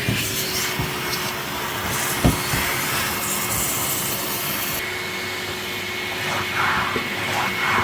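Polivac Wombat bagged commercial vacuum cleaner running with a steady hum and rush of air. There is a single knock about two seconds in, a thin high whistle joins about halfway through, and the airflow swells a few times near the end.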